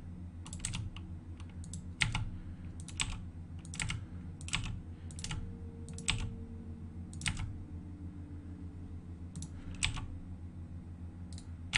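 Computer keyboard keys and mouse buttons clicking in irregular single taps, about one or two a second, as the extrude (E) and scale (S) shortcuts are pressed over and over; a steady low hum lies underneath.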